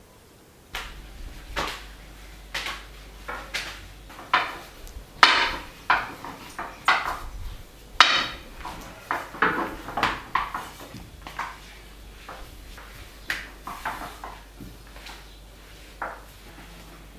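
Irregular knocks, taps and clatters of kitchen work at a table, about one or two a second and loudest around five and eight seconds in, over a low steady hum.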